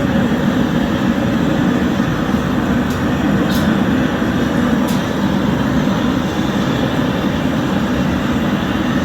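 A steady low rumble with no breaks, with a few faint clicks partway through.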